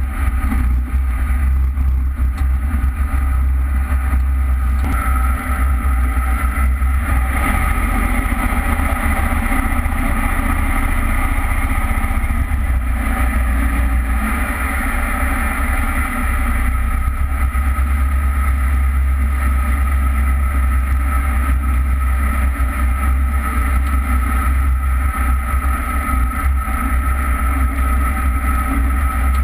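Jet boat's engine running steadily under way, with the rush of water and a heavy low rumble beneath it.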